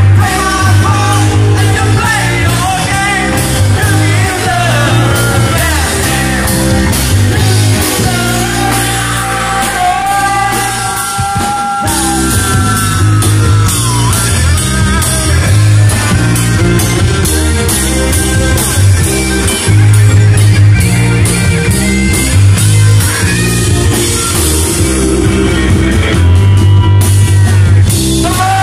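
Live rock band playing a cover song: a singer over electric guitar, bass and drum kit, with a brief break in the bass and drums about twelve seconds in.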